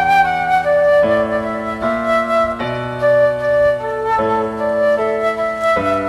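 Background music: a slow, gentle flute-like melody held over sustained chords that change every second or so.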